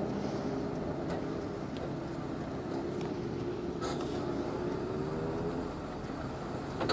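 Vehicle engine idling steadily, with a short sharp click about four seconds in and another at the very end.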